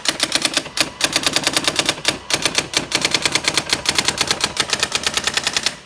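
Brother GX-6750 electronic daisy-wheel typewriter printing its built-in demo text on its own: a rapid, even run of print strikes, about ten a second, with two short pauses near the start, stopping suddenly near the end.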